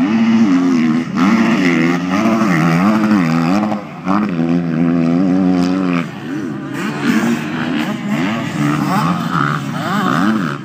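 Motocross motorcycle engines revving hard on the track, their pitch climbing and dropping again and again with throttle and gear changes, with brief drops in loudness as the throttle is shut.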